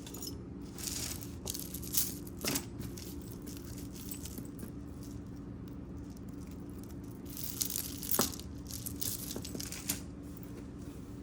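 Costume jewelry being handled: scattered light clinks, rattles and rustles of small metal pieces and chain, in two short flurries, over a steady low background hum.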